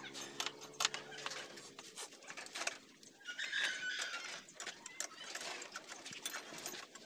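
Light metallic clicks and taps as a motorcycle's front fork tubes are handled and slid back into the fork clamps. A steady low hum runs under the first two seconds, and a short animal call sounds around the middle.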